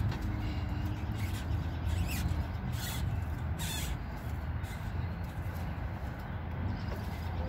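Brief scattered squeaks and scrapes of hand work on a rear shock absorber's lower mount and its rubber bushing, over a steady low rumble.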